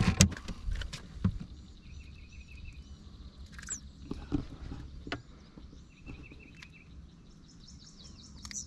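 Outdoor ambience from a fishing boat on a lake: a bird sings short runs of rapid chirps twice, over a low steady rumble, with a few light knocks.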